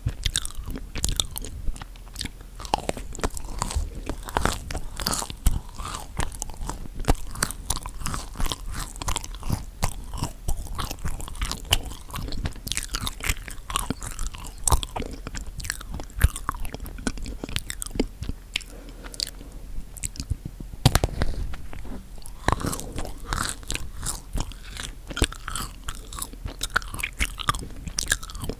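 Close-miked chewing of chocolate-coated marshmallow cookies: dense, irregular crunching and biting clicks.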